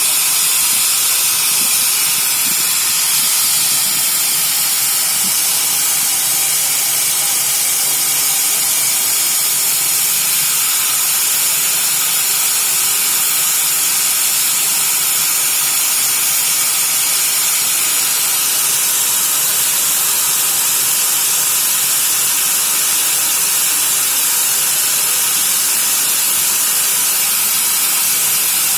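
A train's brakes hissing after being applied: a loud, steady, high hiss of escaping air.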